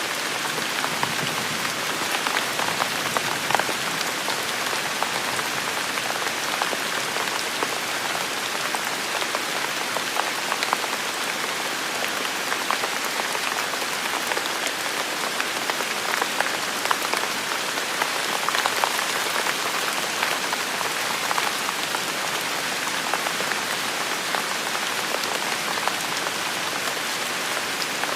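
Steady rain falling on hard surfaces, with many individual drops ticking close by.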